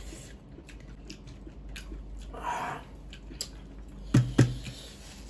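Eating by hand: faint chewing and wet smacking with small clicks as spicy mutton curry and rice are eaten, and a short breathy sound about halfway through. Near the end a man gives two short, loud coughs a fraction of a second apart.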